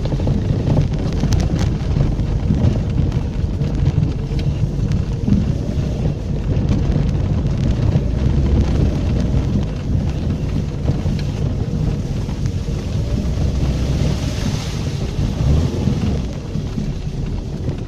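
VAZ-2110 car driving across a wet, muddy field: a loud, steady low rumble of engine and tyres on rough ground.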